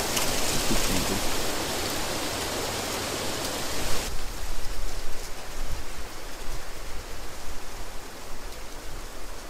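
A steady rushing outdoor noise that turns abruptly quieter and duller about four seconds in.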